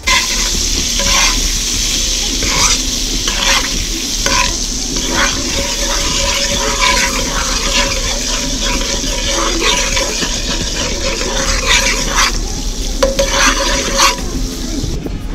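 Butter sizzling in a hot metal wok while a metal spoon stirs it, scraping against the pan about once a second.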